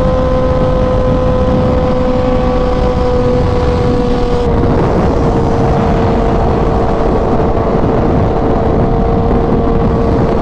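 Sport motorcycle engine running at steady cruising revs on a freeway, under heavy wind rush on the helmet-mounted microphone. The engine note drops a little about four and a half seconds in and then holds steady.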